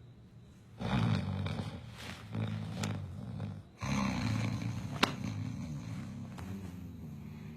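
A person snoring heavily in two long, buzzing snores of about three seconds each, with a short sharp click in the middle of the second.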